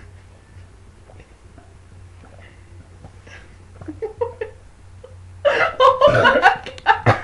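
A teenage girl's long, loud burp about five and a half seconds in, its pitch dipping low and rising again, running into laughter.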